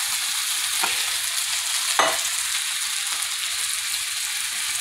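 Ground turkey and beans sizzling in a nonstick frying pan, a steady hiss, as canned tomatoes are tipped in, with two short knocks about one and two seconds in.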